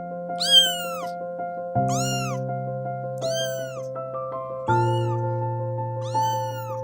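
A kitten meowing five times, each meow rising and then falling in pitch, about a second or so apart.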